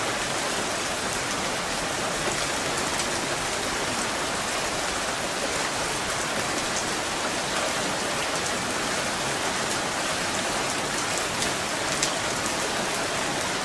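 Hail falling steadily: a dense, even hiss of ice pellets striking the ground and plants, with scattered sharper ticks of single stones.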